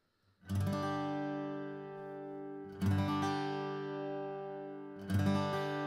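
Atkin Essential OM acoustic guitar strummed with a Dunlop Primetone 0.73 mm pick: three chords about two and a half seconds apart, each left to ring out.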